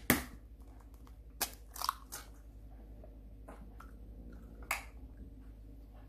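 An egg cracked against a stainless steel mixing bowl and dropped in: a sharp knock right at the start, then a few lighter taps and clinks of shell and whisk on the metal bowl.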